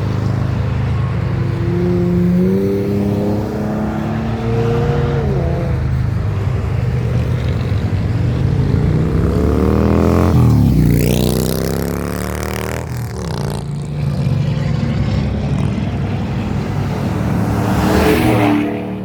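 Cars accelerating past one after another. An engine revs up through a few gear changes early on, then a louder car passes about ten seconds in, its pitch rising as it approaches and dropping as it goes by. Another car passes near the end.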